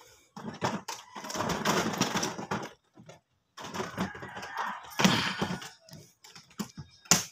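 Irregular rustling and clattering noises, with many small clicks, short pauses, and one sharp click about seven seconds in.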